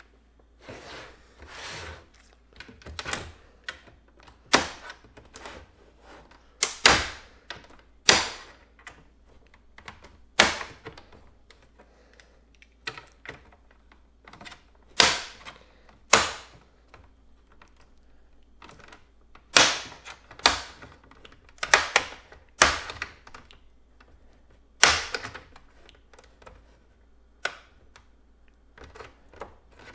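Plastic retaining clips of an Xbox One S's black bottom cover snapping loose one after another as the cover is pried off: sharp, irregular clicks and snaps, a second or two apart, some much louder than others.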